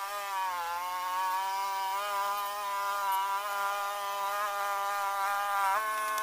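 A flying insect buzzing close by, a steady hum that wavers slightly in pitch and shifts near the end.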